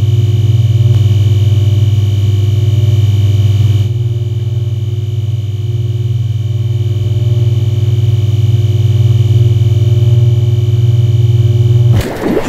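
Low, steady electrical hum with a stack of overtones: the drone of overhead power lines used as a sound effect. It shifts slightly about four seconds in and cuts off abruptly near the end, giving way to a burst of clicking, crackling noise.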